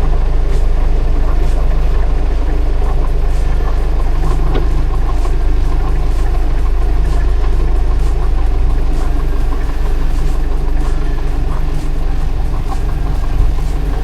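A four-wheel drive's engine running steadily at low revs, dropping away near the end.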